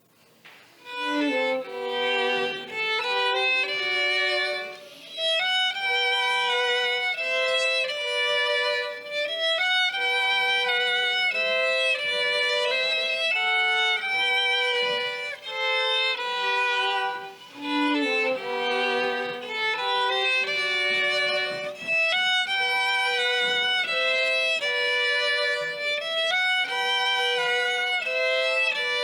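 Violin playing a slow melody of sustained notes with vibrato, starting about a second in.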